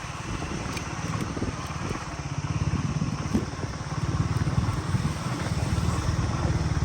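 KTM Duke 200's single-cylinder engine running at low revs under way, a steady pulsing thrum that grows firmer about two seconds in, over road and wind noise from a rough gravel track.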